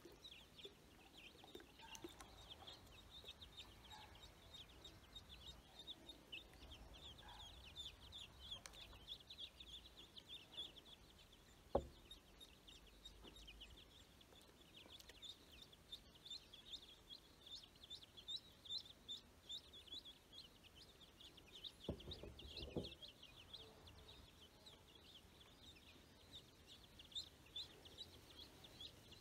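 Faint, continuous high-pitched peeping of ducklings and young chicks, many short cheeps overlapping, with a single sharp tap about twelve seconds in.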